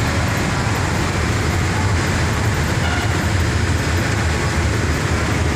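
Steady low drone and rumble filling a ferry's enclosed vehicle deck, from the ship's engines running under way.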